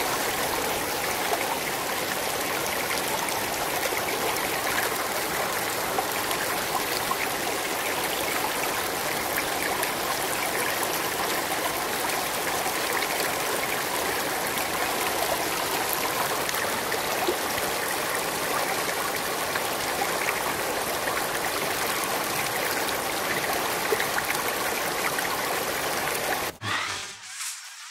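Shallow stream running over rocks: a steady rush of water that cuts off suddenly near the end.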